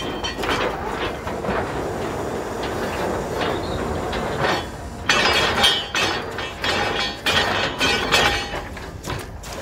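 Truck-mounted borewell drilling rig running while it drills, a steady mechanical din full of rapid rattling and clanking from the drill string. The clanking grows louder and more uneven about halfway through.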